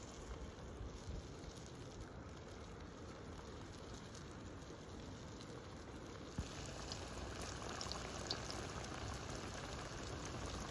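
Yeast-dough pies deep-frying in hot oil: a steady sizzling and bubbling that gets louder, with scattered pops, from about six seconds in.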